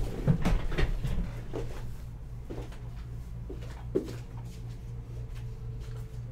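Soft knocks and bumps of a person getting up from a desk chair and moving about a small room, several in the first second and a few scattered ones later, over a steady low hum.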